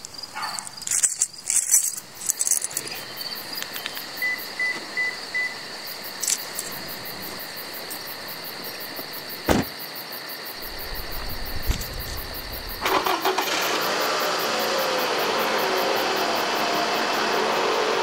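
Inside a Scion car: a few clicks and knocks, then a chime of four short beeps about four seconds in. A sharp click about halfway is followed by a low rumble as the engine starts, and from a few seconds later the engine runs steadily and louder.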